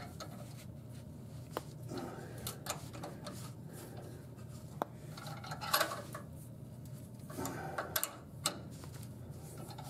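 Hand tap cutting threads into a hole in a steel car frame, its tap wrench worked back and forth. Scattered light metallic clicks and scraping.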